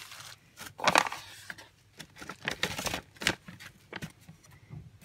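Clear plastic herb bags and a brown paper bag being handled, crinkling and rustling in irregular bursts, the loudest about a second in.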